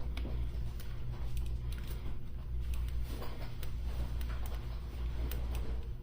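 Desoldering work on a circuit board: faint, scattered little clicks and crackles, such as flux spitting under a soldering iron, over a steady low electrical hum.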